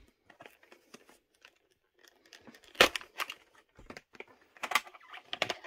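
Plastic clamshell VHS case being handled and opened: scattered plastic clicks, creaks and rustling, with two louder sharp clicks, one about halfway through and one near the end.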